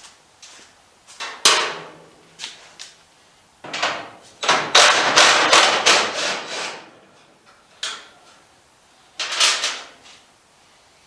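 Irregular clanks, knocks and scraping of metal body parts and tools being handled as a truck's front end is unbolted and lifted off, with the longest, loudest stretch of clatter near the middle.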